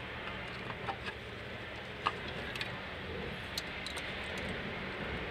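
A few light clicks and knocks as the valve cover is lifted off a Toyota 1GR-FE V6's cylinder head and handled, the sharpest about two seconds in, over a steady background hiss.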